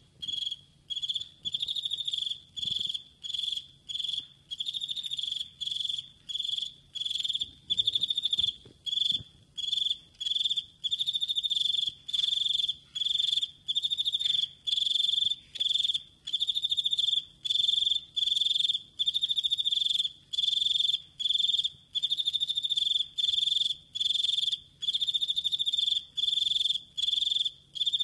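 Male cricket stridulating, rubbing its raised forewings together to make its calling song. It gives a steady series of high, pure-toned chirps, nearly two a second, each a short trill.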